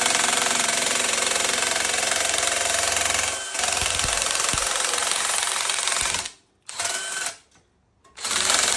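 Cordless drill driving a double-head nibbler attachment as it punches through 25 gauge sheet metal with a rapid mechanical chatter. It runs steadily, stops about six seconds in, gives a short burst, then starts cutting again near the end.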